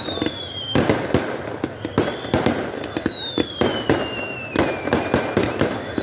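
Fireworks going off in quick succession: a rapid string of sharp bangs from bursting shells and firecrackers, several a second. High whistles run through the bangs, each slowly falling in pitch over one to two seconds: one at the start, one about three seconds in and one near the end.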